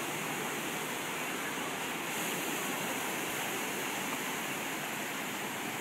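Ocean surf breaking and washing in the shallows, a steady rush of water.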